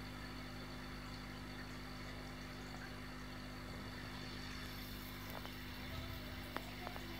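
Steady low hum of running aquarium equipment, with a few faint clicks near the end.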